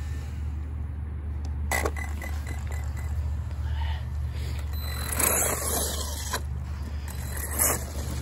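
Steady wind rumble on the microphone. About two seconds in there is a click and a short run of quick high beeps from the RC truck's electronics. From about five seconds the 6S-powered Wltoys 104001 RC truck pulls away across grass and dirt, with tyres scrabbling and scraping.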